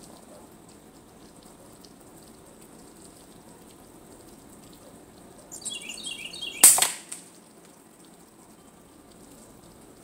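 A single shot from a Hatsan Jet 2 pre-charged pneumatic air rifle: one sharp crack about two-thirds of the way in, with a short ringing tail. Just before it a songbird sings a quick run of falling chirps over a faint background hiss.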